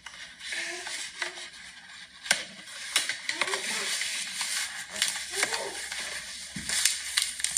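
Hands opening a cardboard trading-card box, with rustling and crinkling and scattered clicks and taps as the lid and packaging are handled. Brief low muttering comes in between.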